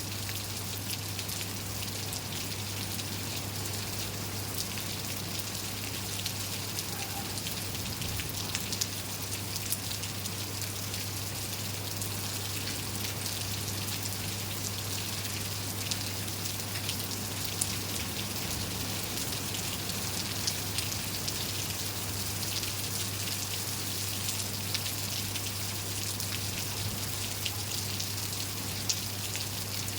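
Steady rain falling, an even hiss dotted with many small drop ticks and an occasional louder drip, over a steady low hum.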